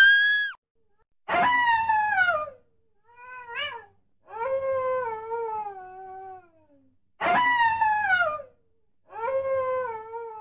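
Coyote howling: a series of drawn-out calls separated by short gaps. One rising howl ends just after the start, then five more follow, most sliding downward in pitch, with one short wavering call among them.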